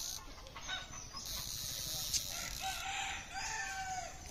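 A rooster crowing once in the second half, its long drawn-out last note held and then dropping away.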